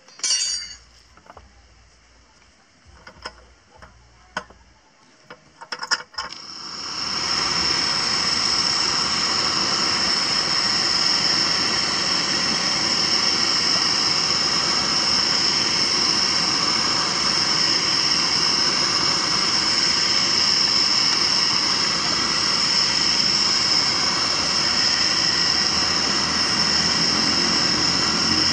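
A few scattered metal clinks and knocks, then about six seconds in the burner under a hand-cranked cast-iron popcorn puffing drum is lit and runs on with a steady, loud hiss as the sealed drum heats.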